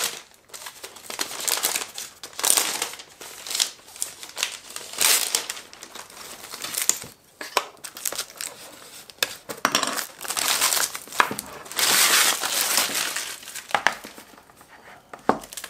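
Clear plastic wrapping crinkling and rustling in irregular bursts as it is handled and peeled off a portable monitor, with a few sharp clicks; the crinkling dies down near the end.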